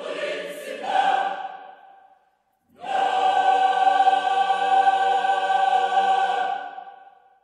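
A choir singing long held chords: one chord fades out about two seconds in, and after a short silence another is held for about four seconds before fading away.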